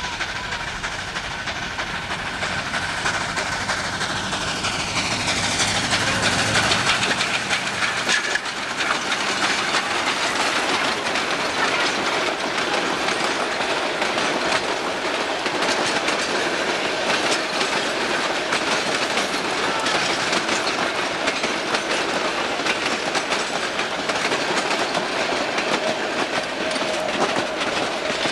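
Narrow-gauge steam train passing close by. The 2-8-2 Mikado locomotive's low rumble fades out about seven seconds in. Then the passenger coaches roll past with a steady clickety-clack of wheels over the rail joints.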